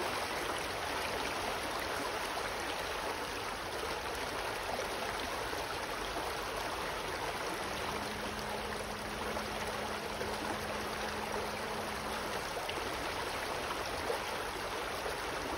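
Water rushing steadily over rocks in a stream below waterfalls, running high after heavy flooding. A faint low steady hum joins it for a few seconds in the middle.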